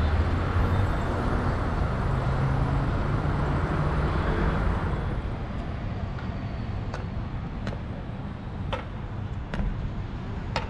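City street traffic: a motor vehicle's engine hum and road noise are loudest for about the first five seconds, then fade into quieter street noise with a few sharp clicks.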